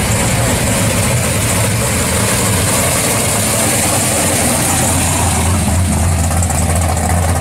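First-generation Chevrolet Camaro SS's V8 idling through its exhaust as it rolls slowly by, a steady, deep, unbroken note.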